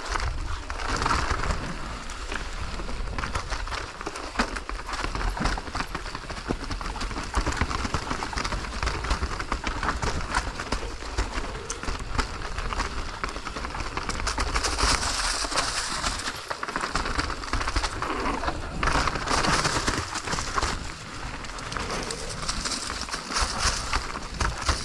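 Mountain bike ridden fast down a rough trail: a dense, irregular clatter of the bike rattling over roots and rocks, with tyres on dirt. Wind buffets the helmet-mounted camera's microphone throughout as a low rumble.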